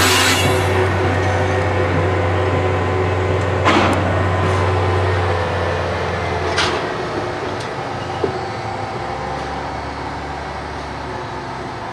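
Dr35 diesel shunting locomotive running slowly past with its wagons: a steady low engine drone that drops to a lower, weaker note about two-thirds through as the throttle eases. Three brief sharp sounds from the train come about four and six and a half seconds in, and the whole sound slowly fades.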